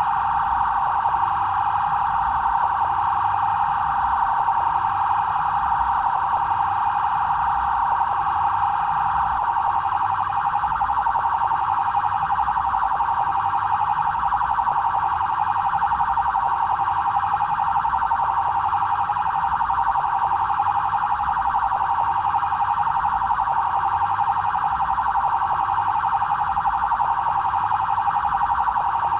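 BAEP police vehicle siren sounding continuously: one high tone held at the same pitch, fluttering rapidly and never rising or falling.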